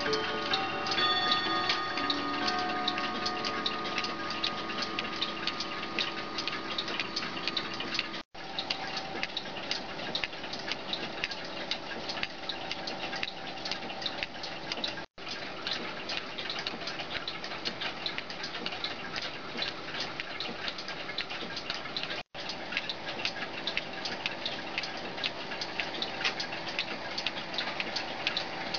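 Telavox 4.5 V electric clock movement running with fast, continuous mechanical clicking. The ring of its striking bell fades away over the first few seconds. The sound is broken by three brief silent gaps.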